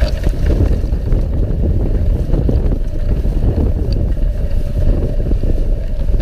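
Dog sled moving over snow: a steady, dull rumble of wind buffeting the microphone together with the sled's travel over the snow.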